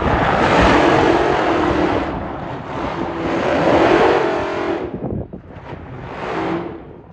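A high-performance car engine running hard at high revs over a loud rush of noise. It starts suddenly, fades after about five seconds, and swells again briefly near the end.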